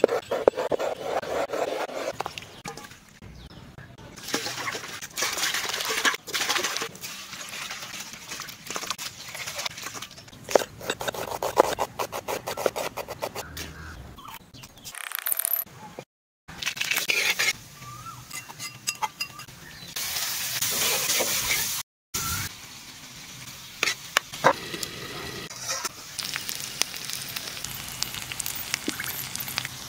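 A run of cooking sounds that change abruptly several times with brief gaps: a knife cutting and scraping on a cutting board, then food sizzling and being stirred in a pan.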